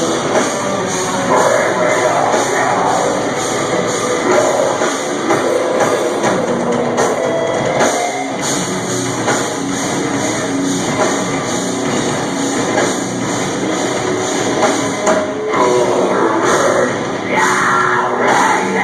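Live metalcore band playing loud: distorted guitars and a pounding drum kit, with harsh vocals over parts of it. The sound is thin in the bass and crowded, as from a camera mic near the stage.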